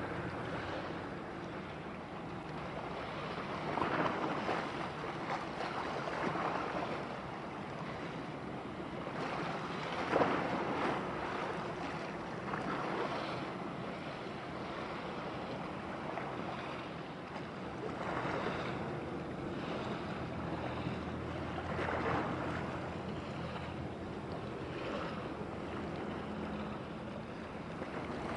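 Wind and sea-water washing, a rushing noise that swells and eases every few seconds, over a faint steady low hum.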